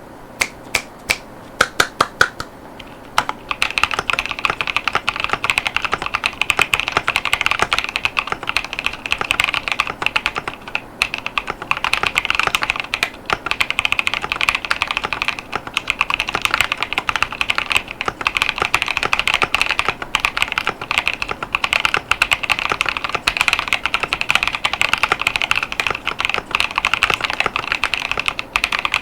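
Typing on a HYTE Keeb TKL mechanical keyboard with Kailh Clione Limacina tactile switches (48 gf) and PBT OEM-profile keycaps. There are a few separate keystrokes at first, then from about three seconds in, fast continuous typing with rapid key clicks.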